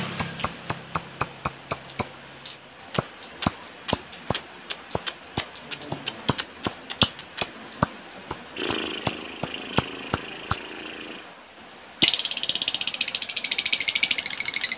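Lovebird giving sharp, repeated tick calls about four a second, the 'ngetik' call. After a short pause about three seconds before the end, it breaks into a fast, continuous chatter, the long 'ngekek' song that such recordings are played to coax other lovebirds into.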